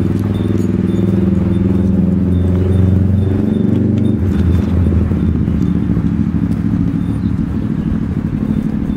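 A motor running steadily: a low hum with a slight change in pitch a couple of times.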